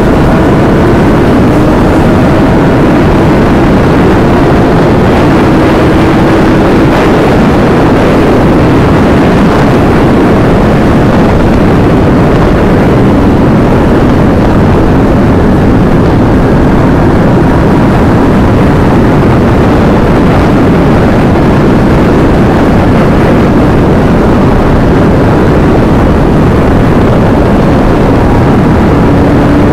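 Kawasaki ZX-10R's inline-four engine running at sustained high speed, its pitch climbing slowly in places. It is largely buried under loud, steady wind rush over the microphone.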